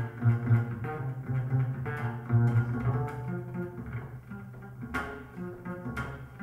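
Double bass playing a melodic line of held low notes with rich overtones, with a couple of sharp string attacks near the end.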